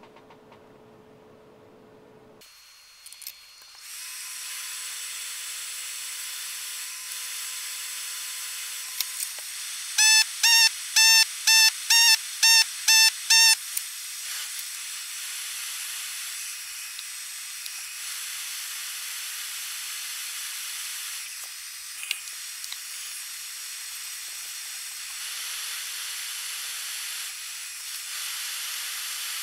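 Steady hiss of a benchtop fume extractor's fan running beside the circuit board during desoldering. About ten seconds in, a quick run of about eight short electronic beeps sounds over it.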